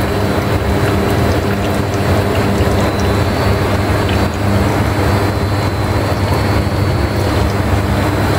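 Exhaust air-cleaning plant machinery running steadily: a continuous low hum with a thin high whine above it.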